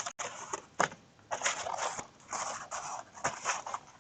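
Paper craft pieces being handled and pressed together by hand: irregular rustling and scraping with a few light taps and clicks.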